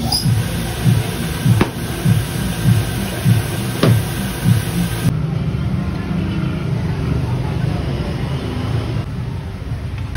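Background music with a steady beat, about one and a half beats a second; about halfway through the sound changes and the beat gives way to a steadier low hum.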